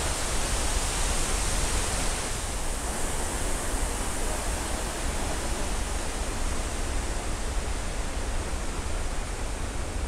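Steady rush of a large waterfall pouring into a river, heard from near its base.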